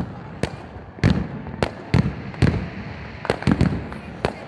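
Aerial fireworks bursting: about eight sharp bangs at irregular intervals, each followed by a short low rumble.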